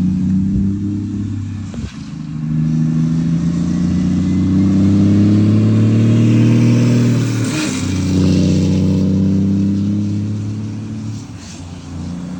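Scania truck's diesel engine running through an aftermarket exhaust, with a deep, steady rumble. The note breaks briefly about two seconds in and again at about seven and a half seconds, the second time with a short hiss, then settles and eases off near the end.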